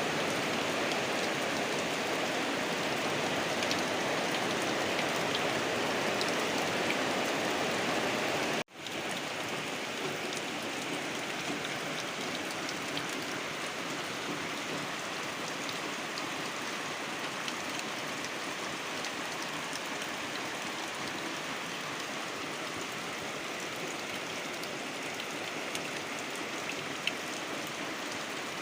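Heavy tropical downpour, an even, dense hiss of rain falling hard. About nine seconds in it cuts out for an instant, then comes back a little quieter.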